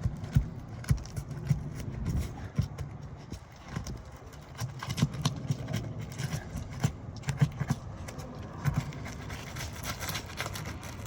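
Irregular knocks, clicks and scrapes as brittle asphalt roof shingles are pried and worked loose, over a low rumble.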